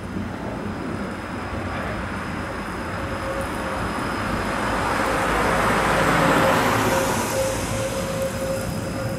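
A tram's wheels squeal on a curve as it approaches along street track, a steady tone that sets in about three seconds in and grows louder. A car passes on the wet road, its tyre hiss swelling to the loudest point around the middle and then fading.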